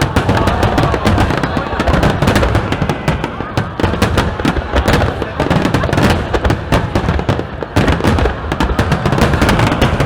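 Fireworks going off in a rapid, unbroken barrage of bangs and crackling pops, many each second, over a low rumble.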